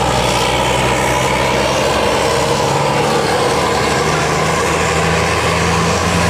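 Tour bus's diesel engine running, a steady low hum under a dense wash of road and traffic noise.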